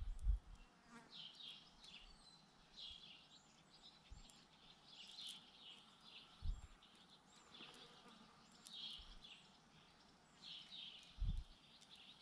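Faint bird chirping, short high calls repeating about once a second, with a few soft low bumps.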